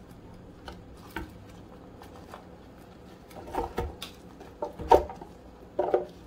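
Chopped onions, garlic, hot pepper, thyme and scallions dropping from a glass bowl into an empty plastic blender jar: a scatter of light knocks and thuds, coming thicker in the second half, the loudest just before five seconds in.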